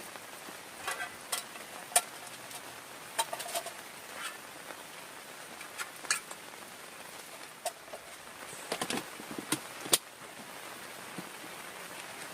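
Steady rain falling, with irregular sharp taps of single large drops striking close by. The loudest taps come about two seconds in and again near the end.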